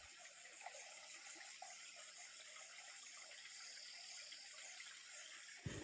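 Faint, steady sound of running water from a small stream below, with a soft bump near the end.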